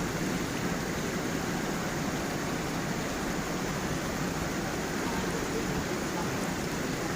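Small waterfall and forest stream flowing over stones: a steady, unbroken rush of water.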